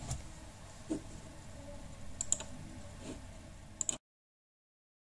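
A handful of faint computer clicks, as the mouse and keys are worked, over quiet room hiss; near the end the sound cuts off to dead silence.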